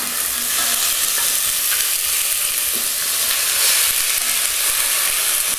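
Beef short ribs sizzling steadily as they sear in a pre-heated cast-iron Dutch oven over high heat.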